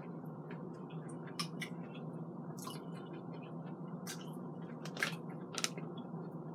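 A person chewing a mouthful of chili: soft wet mouth clicks and smacks, a few every second or so, over a steady low hum.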